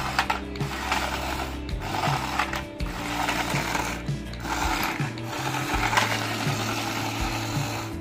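Toy remote-control stunt car's small electric motor and plastic gears whirring in repeated bursts of about a second, with short breaks between them as it is driven.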